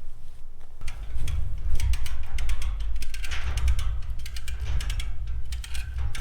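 Ratchet on a tie-down strap being cranked: quick, irregular runs of sharp clicks over a steady low rumble.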